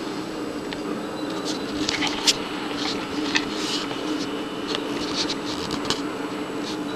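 Irregular light clicks and ticks, two of them sharper than the rest, over a steady low hum.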